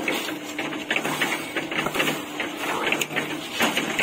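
Wet concrete mix being scraped with a hoe from a steel tray into metal pans: repeated scraping and clattering of metal on metal, over a steady low hum.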